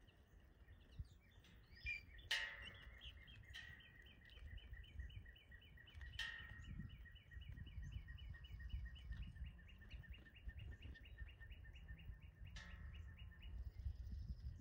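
Faint songbird call: the same short chirp repeated about four times a second for roughly eleven seconds, with a few sharp clicks along the way, over a low steady rumble.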